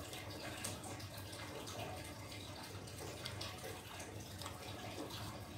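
Soft scattered clicks of someone eating from a plastic cup with a plastic spoon (chewing and the spoon against the cup), over a faint steady hiss and a low hum.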